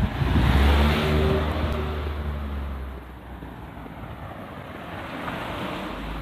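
A road vehicle's engine passing close and then fading as it drives away, its low hum dying down over about three seconds.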